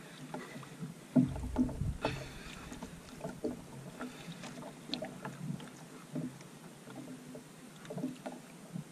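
Quiet, irregular clicks and knocks from a small wooden outrigger fishing boat and the angler's jigging rod and reel as a hooked fish is pumped and reeled in, with a duller thump about a second in.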